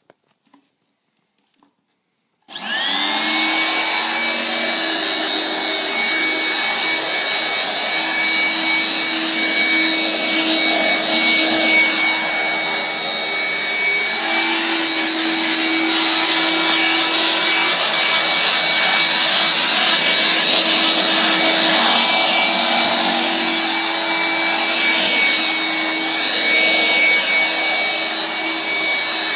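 Small Hoover Brush Vac vacuum cleaner with a belt-driven brush bar, switched on about two and a half seconds in after a few faint clicks. Its motor spins up to a high whine and then runs steadily.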